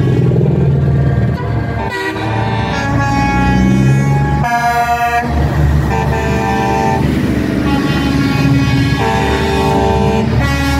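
Semi trucks in a convoy sound their air horns in several long, separate blasts over the steady rumble of their diesel engines as they drive past.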